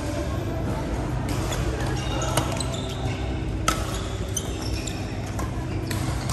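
Badminton rally: several sharp cracks of rackets striking the shuttlecock, about a second or two apart, with short squeaks of shoes on the court floor and a steady hum in the background.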